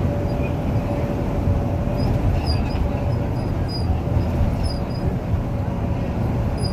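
A long train rolling past: a steady rumble of wheels on rail, with scattered short high-pitched squeaks from about two seconds in.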